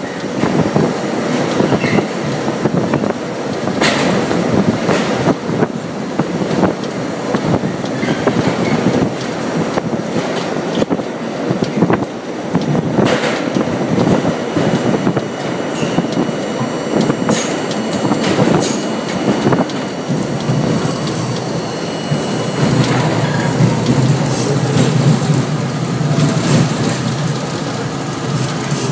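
New York City subway train running through a tunnel and along a station platform: a steady loud rumble of steel wheels on rail, with irregular sharp clacks over rail joints and a thin high squeal in the middle stretch.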